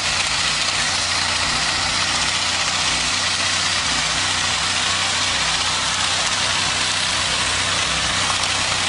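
SUV engine held at steady high revs during a burnout. A rear wheel spins with its tire burned off, and the bare rim grinds on the pavement, throwing sparks. A steady harsh hissing scrape sits over a low engine drone.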